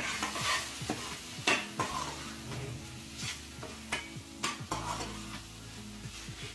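A perforated steel spatula scraping and stirring thick carrot halwa around a stainless-steel kadai in repeated strokes, with sizzling as the last of the moisture cooks off.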